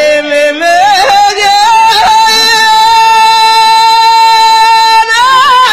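A single voice sings a long high note. It rises and wavers at first, holds steady for about three seconds, then breaks into warbling near the end.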